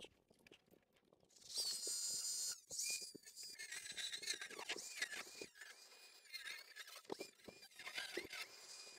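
A scribing tool scraping and squeaking in short irregular strokes as it scores a window outline into the wooden wall of the camper. It starts about a second and a half in.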